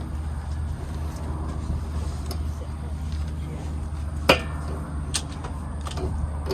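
Steady low hum with a sharp knock about four seconds in and a lighter one about a second later, from work on the bike.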